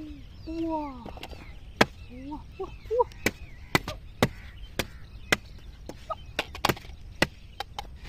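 Machete chopping at a wooden stake: about a dozen sharp knocks, roughly two a second, starting about two seconds in.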